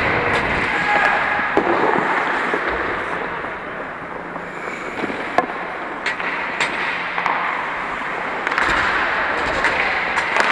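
Ice hockey play: steady scraping of skate blades on the ice, broken by a few sharp clacks of sticks and puck.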